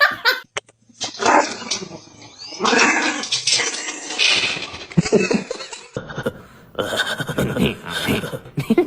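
A dog vocalising in a series of short bursts, with barks and growls.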